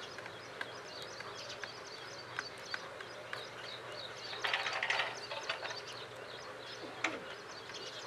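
House sparrows chirping in short, repeated notes, with a louder, noisier burst lasting under a second about four and a half seconds in.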